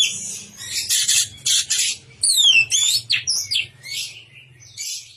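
Orange-headed thrush (anis merah) in full song: a fast, unbroken run of scratchy, harsh notes mixed with clear whistles that slide downward, over a faint steady low hum.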